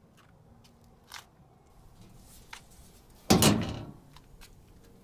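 Electrical breaker panel being worked to cut power to the outlet: one loud metallic clunk about three seconds in, with a few light clicks around it.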